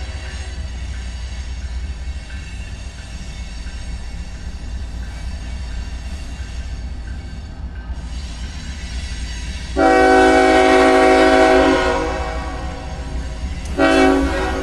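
Diesel freight locomotive's air horn sounding for a grade crossing: one long blast about ten seconds in, lasting about two seconds, then a short blast near the end, over the steady low rumble of the approaching train.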